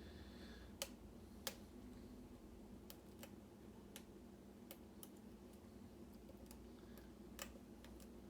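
Faint, irregular small clicks and taps of a lock pick working the pins of a pin-tumbler challenge lock under tension, with two sharper clicks about a second in and another near the end.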